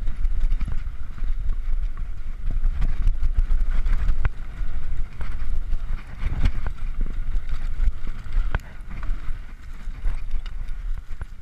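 Mountain bike riding fast down a bumpy dirt singletrack, heard from a helmet camera. Wind rumbles steadily on the microphone under the tyres' rolling noise, with frequent short clicks and rattles from the bike as it hits bumps.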